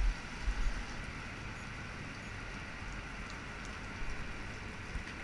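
Steady hiss of heavy rain falling on the water and grass, with a few low bumps on the microphone in the first second.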